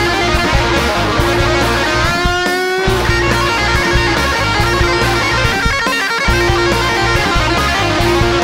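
Background music: a guitar instrumental over bass and drums with a steady beat, a guitar note sliding upward about two seconds in.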